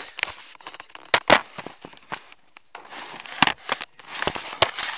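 Irregular crackling, scraping and sharp knocks right at the microphone, from the camera being handled and moved around, with the loudest knocks about a second and a quarter in and near the end.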